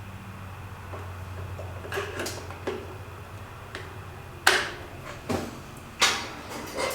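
Clicks and knocks of C batteries being fitted into a kerosene heater's plastic battery compartment and the battery door handled, a string of separate sharp clicks, the loudest about four and a half and six seconds in.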